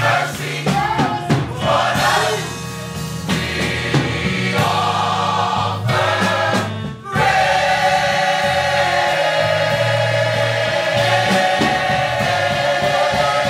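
Gospel mass choir singing over steady low instrumental notes. After a brief dip about seven seconds in, the choir holds one long chord.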